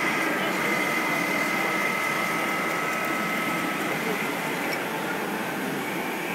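Sysform FP-series digital foil printer running, with a steady high whine of two tones that stops about three to four seconds in, over a steady background hum.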